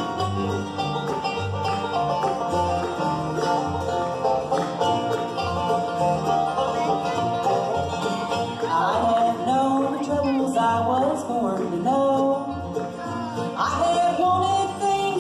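A bluegrass band playing live: banjo, mandolin, acoustic guitars, resonator guitar and upright bass plucking a steady, driving rhythm. About halfway through, a bending, sliding lead line comes in over the picking.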